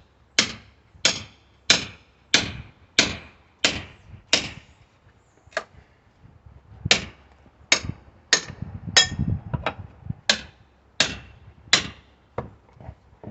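Small sledgehammer striking a pry bar over and over, working a stubborn board loose from a wood pallet: sharp ringing blows about one every two thirds of a second, a run of about seven, a short pause, then about seven more.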